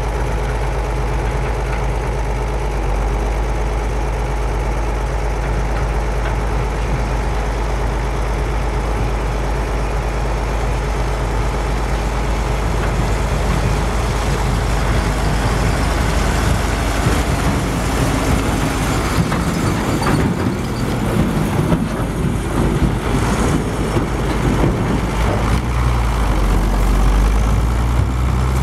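Zetor tractor's six-cylinder diesel engine running under load as it pulls a loaded dump trailer, a steady drone. Past the middle the sound turns rougher and noisier for several seconds, and the engine note is louder again near the end.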